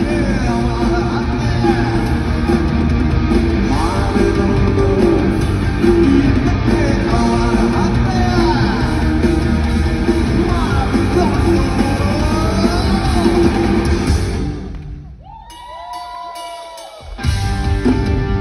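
Live rock band playing in a large hall, with guitar and singing. About fifteen seconds in, the band drops out for a couple of seconds, leaving a few quieter sliding tones, then comes back in near the end.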